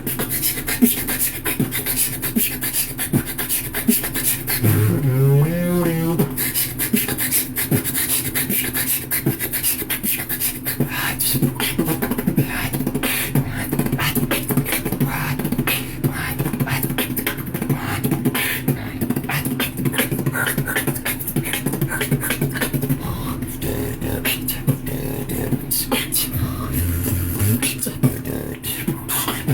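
Solo vocal beatboxing: a fast, dense stream of mouth-made percussive hits and clicks over a steady low tone, with a wobbling, rising pitched vocal glide about five seconds in.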